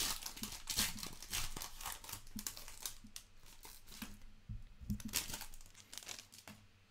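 Foil wrapper of a trading-card pack crinkling and tearing as it is ripped open by hand, a rapid irregular crackle that dies away near the end.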